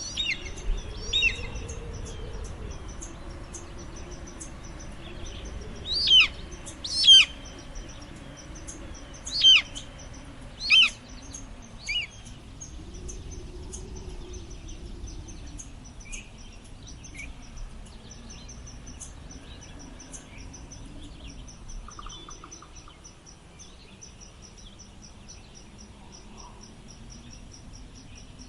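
Gentle wind blowing with a low, slowly swelling moan, under a bird of prey's sharp, downward-sliding screams. About seven screams come in the first twelve seconds or so, the loudest around six to eleven seconds in; after that only the wind and a faint fast high ticking remain.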